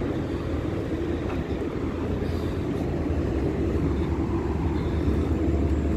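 Steady low rumble of distant road traffic, growing slightly louder over the few seconds.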